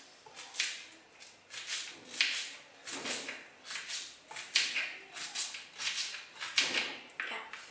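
A kitchen knife chopping green chilies finely on a cutting board, in a run of short strokes about two a second, slightly uneven.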